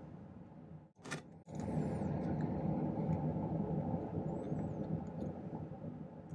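Steady rushing of a jeweller's torch flame heating sterling silver wire. It drops out briefly about a second in, then comes back louder and holds steady.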